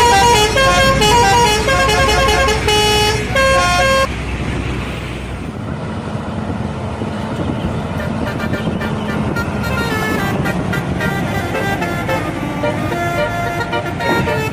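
A bus's telolet horn, a multi-trumpet air horn, playing a quick tune of stepped notes for about four seconds and then cutting off. Engine and road noise follow, and a fainter telolet tune starts up about ten seconds in.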